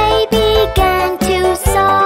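Children's nursery-rhyme music with a steady beat and a bright melody.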